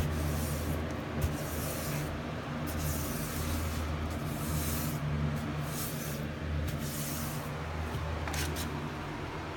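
A paintbrush swishing in repeated strokes as primer is brushed onto old wood trim, over a steady low hum.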